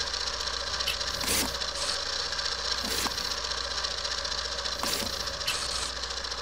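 Title-sequence sound design for an animated logo: a steady mechanical whirring texture over a low hum, with a short sweep about every two seconds.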